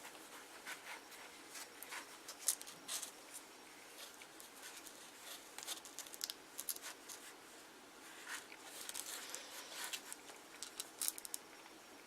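Paper-mâché materials being handled by hand: irregular crisp rustles and small clicks, a few louder ones near the middle and end.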